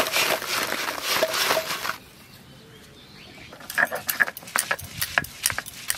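Crisp fried fuchka puris tumbling out of a steel bowl onto a plastic sheet, a dry rustling clatter for about two seconds. After a short lull, sharp irregular clicks of a stone grinder knocking on a wet stone slab as coriander leaves are ground, about three or four a second.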